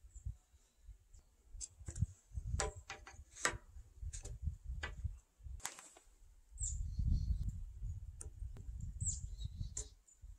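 Scattered clicks and light knocks of a thin wooden batten and pencil being handled on a squared timber, with a few short bird chirps. A low rumble fills the second half.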